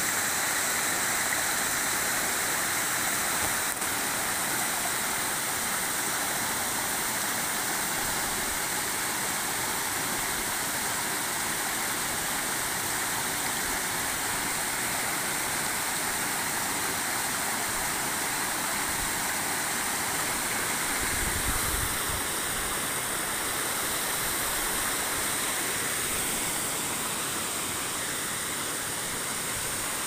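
Mountain stream rushing and splashing over rocks in small cascades: a steady hiss of white water.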